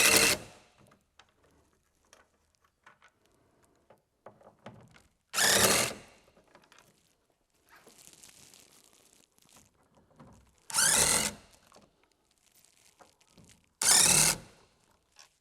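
Power drill/driver running in four short bursts a few seconds apart, each with a wavering whine, backing out the four screws that hold a factory 6x9 door speaker.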